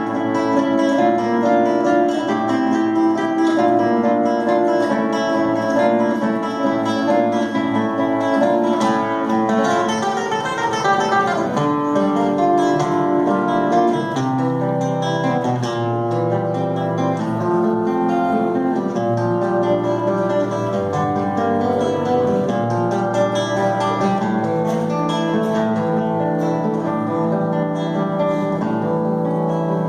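Instrumental introduction to a song: acoustic guitar picking and strumming chords.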